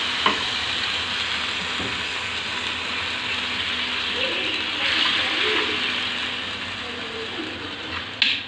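Melted jaggery and ghee sizzling hard in a hot pan just after water has been poured in. The hiss swells about five seconds in and then slowly dies down, with a single sharp click near the start.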